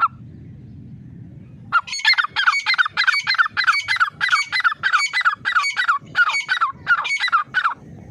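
Grey francolin calling: after about two seconds, a loud run of harsh repeated notes, each sliding down in pitch, about two a second, for some six seconds before stopping.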